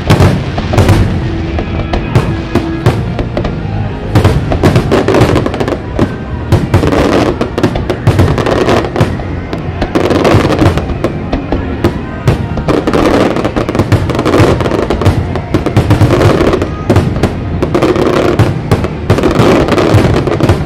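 Aerial fireworks shells bursting in rapid, near-continuous succession, with booms and crackle, over soft show music.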